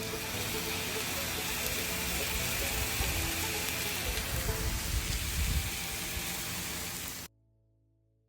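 Steady loud hiss with faint music beneath it, cutting off abruptly about seven seconds in.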